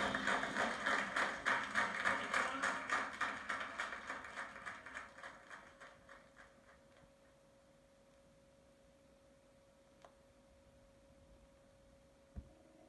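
Music played from a vinyl LP on a turntable fades out over the first six seconds, a fast, even pulse dying away. A faint steady tone and low noise are left, with a small click about ten seconds in and a short low thump near the end.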